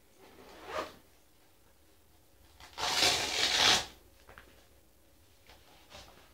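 A fabric crampon bag being handled and opened: a short rustle, then a loud rasp about a second long in the middle, followed by a few light clicks.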